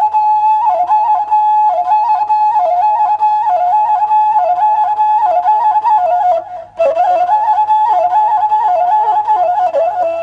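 Washint, the Ethiopian end-blown bamboo flute, playing a solo melody that hovers around one held note with quick ornamental turns. It breaks off briefly for a breath about six and a half seconds in.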